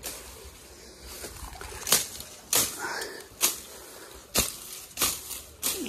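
A hand sickle slashing through thick, overgrown weed stalks: about six sharp cutting strokes, coming roughly every second, starting about two seconds in.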